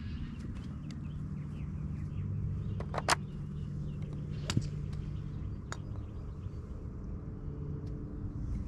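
A crisp, sharp click of a golf club striking a ball about three seconds in, the loudest sound, followed by two fainter clicks about a second and a half apart. Under them runs a steady low engine drone, with a few faint bird chirps early on.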